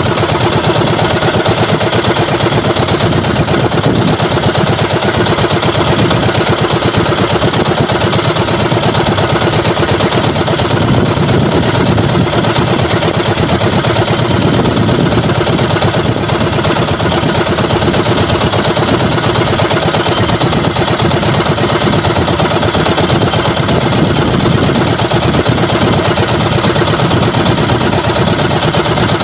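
Outrigger fishing boat's engine running steadily, with a fast, even chugging rhythm.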